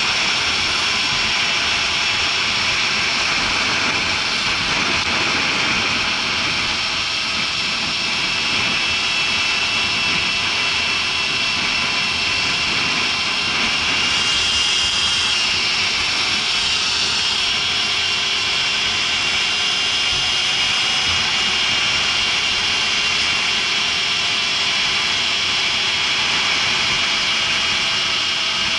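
Electric dirt bike ridden along a paved street: a steady high-pitched motor whine over a constant rush of wind and tyre noise.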